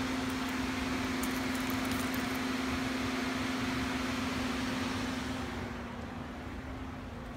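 Nissan SUV idling with its air-conditioning fan running: a steady hum under a hiss of air. It gets somewhat quieter about six seconds in.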